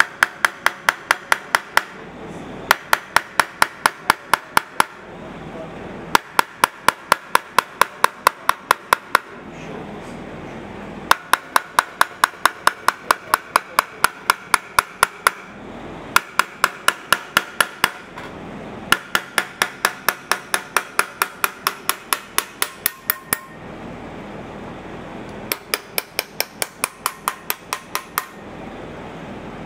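Chasing hammer tapping a steel chasing punch into a copper sheet in quick, even runs of about five strikes a second, with brief pauses every few seconds; each strike gives a bright metallic ring.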